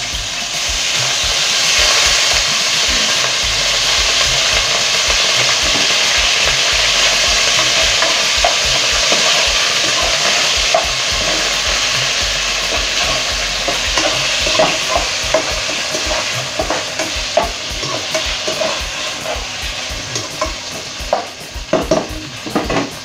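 Deli shaved bacon sizzling as it fries in hot oil in a metal pot. In the second half a metal slotted spoon stirs it, with scattered clicks and knocks against the pot, the sharpest near the end.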